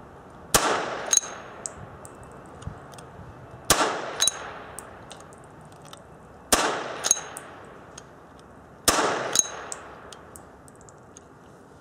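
A Perfecta DFP blank-firing starter pistol fires four blank shots, roughly three seconds apart, each echoing briefly under the range roof. A short ringing metallic ping follows each shot about half a second later: the spent blank case, which this pistol throws out the top, landing.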